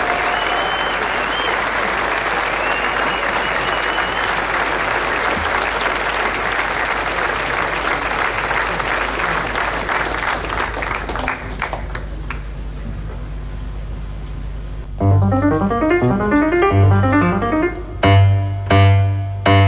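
Concert audience applauding, the clapping thinning out after about ten seconds. About fifteen seconds in, a keyboard starts a rapid line of notes over a low bass note, then loud repeated chords near the end.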